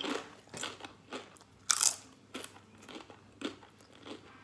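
Crunching and chewing of a crispy home-fried potato chip: a series of irregular crisp crunches, the loudest about two seconds in.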